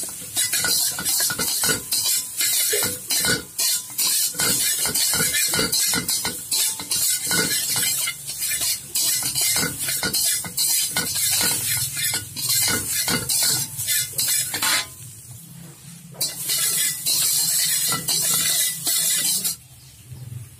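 Flat metal spatula scraping and clanking against a wok in quick repeated strokes while stir-frying, over a steady frying sizzle. The stirring pauses briefly about three-quarters of the way through and again just before the end.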